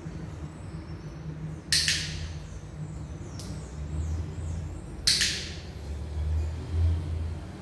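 Dog-training clicker clicked twice, about three and a half seconds apart, each a sharp click: the clicker being charged, each click paired with a hand-fed treat.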